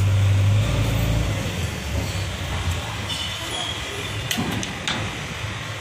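A 150-bar electric high-pressure washer's motor hums loudly and steadily, then fades out about a second and a half in. A steady hiss carries on after it, with a couple of sharp clicks near the end.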